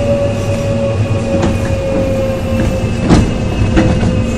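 Running sound inside a Korail 3000-series Mitsubishi GTO-VVVF electric multiple unit: a steady low rumble from the wheels and track with a steady whine that drifts slightly lower in pitch. A few sharp knocks sound over it, the loudest about three seconds in.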